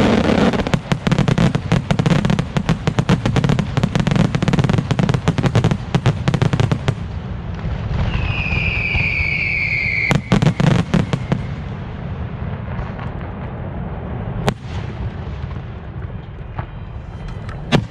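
Fireworks display: dense, rapid volleys of bangs for about seven seconds, then a falling whistle from a whistling shell, another brief cluster of bangs, and a few scattered single bangs near the end.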